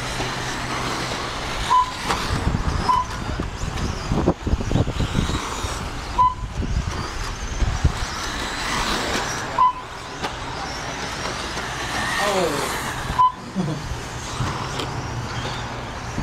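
Electric RC stock trucks running on a dirt track: a steady haze of motor and tyre noise with occasional knocks and a few falling whines. Short high beeps sound every few seconds, typical of a lap-counting timing system as trucks cross the line.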